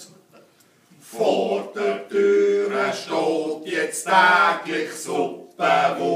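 A small group of men singing a Schnitzelbank verse together in Swiss German, unaccompanied, with held notes. The singing stops briefly and starts the next line about a second in.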